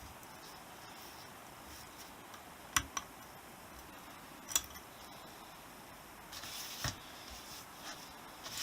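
Quiet workshop room tone with a few sharp clicks and knocks of small objects being handled: two close together about three seconds in, one more about a second and a half later, and a short rustle ending in a dull thump near the end.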